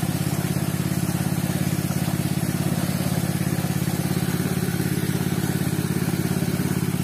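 Robin small petrol engine driving the water pump, running steadily at a constant speed with an even, fast pulsing beat.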